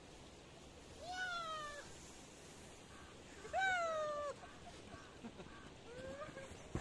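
A man's two long, high-pitched whoops of excitement while sliding down a snow slope: the first comes about a second in, and a louder one comes in the middle. A shorter, fainter cry follows near the end.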